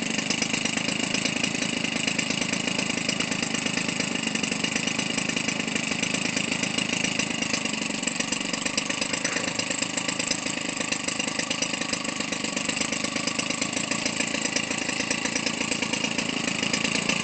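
Weedeater Featherlite 25cc two-stroke engine, converted for a radio-control plane and turning an 18x6 Master Airscrew propeller, running steadily at an even speed. Its muffler baffle is drilled out to exhaust better, which makes it a little louder.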